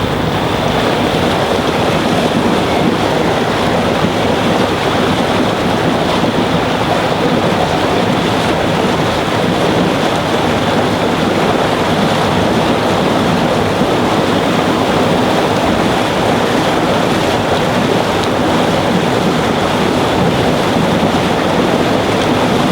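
Steady rush of water, with wind blowing on the microphone, around the steamship S/S Tarjanne.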